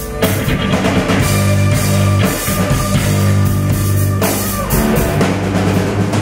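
Live rock band playing loud: a drum kit beating steadily under electric guitar and sustained low bass notes, the playing shifting a little past the middle.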